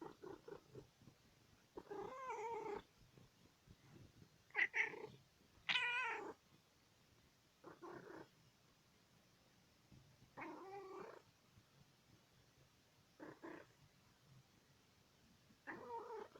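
Domestic cat making a series of odd short calls, about eight of them a second or two apart, some wavering in pitch.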